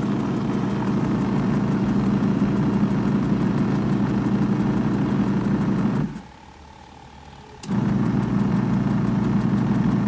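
Mini washing machine's motor running, turning the pulsator in the wash tub with a steady hum. About six seconds in it stops for a second and a half, then starts up again.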